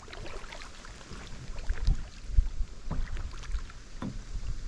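Kayak paddles dipping and splashing in lake water, several irregular strokes, with wind rumbling on the microphone.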